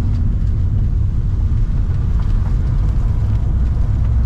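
Loud, steady low rumble heard from inside a vehicle, with a tornado passing close by.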